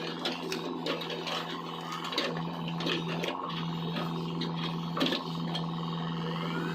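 XCMG mini excavator's diesel engine running steadily, with scattered knocks and clicks from the digging. The engine note shifts briefly a couple of seconds in and dips again about five seconds in.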